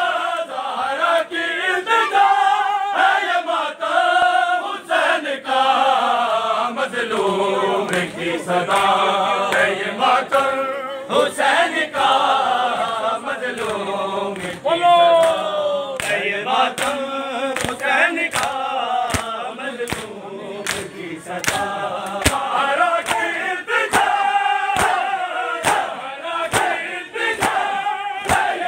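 A large group of men chanting a Muharram noha together, with sharp hand slaps of chest-beating (matam) that fall into a steady beat of about one and a half a second from the middle on.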